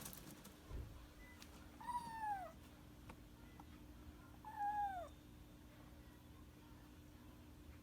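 Munchkin kitten meowing twice, about three seconds apart, each meow sliding down in pitch.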